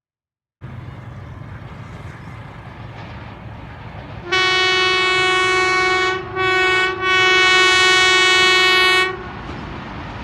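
Hitachi diesel-electric locomotive's air horn sounding three blasts, long, short, long, over the low rumble of an approaching train that starts about half a second in.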